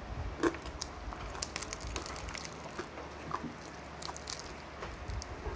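Close-miked eating sounds: chewing and crunching of crispy deep-fried pork skin, heard as scattered short crackles and clicks while pieces are torn off by hand.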